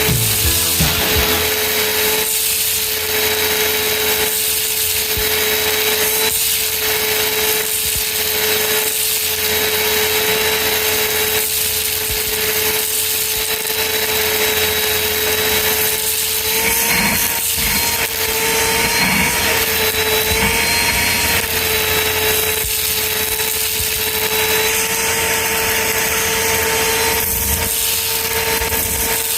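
Cyclone-type vacuum cleaner running steadily: a rush of air with a constant whine from the motor, whose pitch wavers briefly about midway through.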